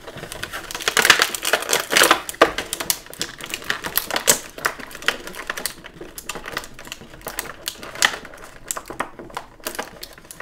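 Stiff clear plastic packaging clicking and crackling as an action figure's small plastic interchangeable hand is worked free of its tray, a rapid, irregular run of small clicks and rustles, busiest about a second or two in.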